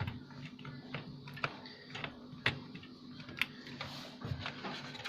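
Light, irregular clicks and taps from handling a SATA SSD, its cables and screws inside a PC case, over a faint steady hum.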